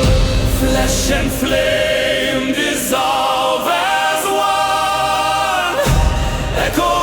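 Slow, dark ambient fantasy music with sustained wordless choir voices over low held tones.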